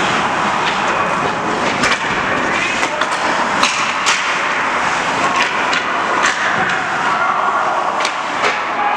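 Ice hockey play on a rink: sharp knocks of sticks and puck, with skates scraping, over a steady din of rink noise.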